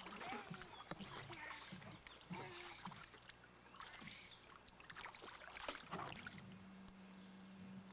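Faint, irregular splashing and sloshing of shallow water in a small plastic wading pool as a toddler moves about in it.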